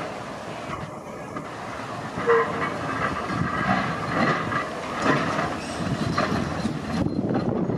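Brisbane electric tram No. 554 rolling slowly over curved track and points. About two seconds in, its wheels begin a high, wavering squeal on the curve, with a few clunks as they cross the rail joints and points.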